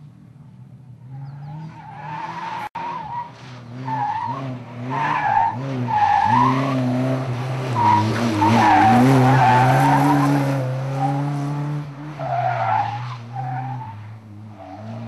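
Opel Corsa rally car's engine revving hard, its pitch rising and dropping with each gear change and lift, growing louder as the car approaches, loudest past the middle, then fading as it goes away.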